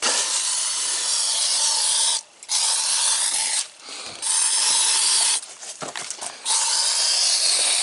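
Aerosol can of ant insecticide spraying in four bursts of hiss with short breaks between them, the first and longest about two seconds.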